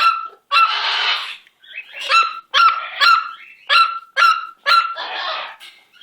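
Pet parrot calling loudly: about seven short, sharp calls, with two longer harsh screeches among them, one near the start and one near the end.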